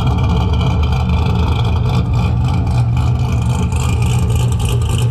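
Corvette C6's 6.2-litre LS3 V8 with a large cam, long-tube headers and a full exhaust, running loudly at a steady speed, most likely a lumpy idle. The exhaust rumble is heavy and deep.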